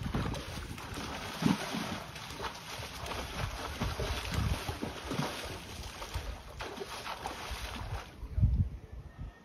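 Pool water splashing and sloshing as a dog thrashes and plunges in a swimming pool, with wind rumbling on the microphone. The splashing dies away near the end.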